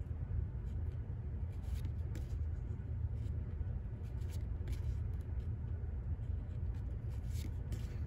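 Trading cards being thumbed through one at a time by hand: soft scrapes and flicks of card stock as each card slides off the front of the stack. A steady low hum runs underneath.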